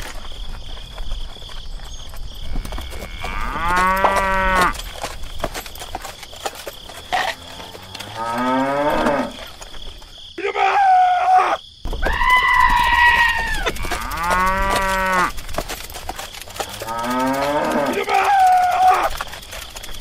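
Cows mooing: about six long, drawn-out calls one after another, each lasting around a second or more.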